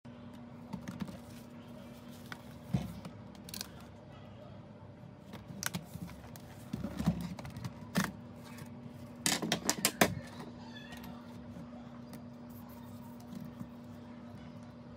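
Hands working on a laptop's plastic case and parts: scattered clicks and knocks, with a quick run of sharp clicks about nine to ten seconds in, over a steady low hum.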